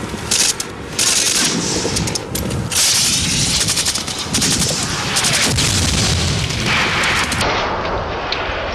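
Automatic gunfire from a Kalashnikov-type assault rifle, with shots coming in quick strings and bursts one after another.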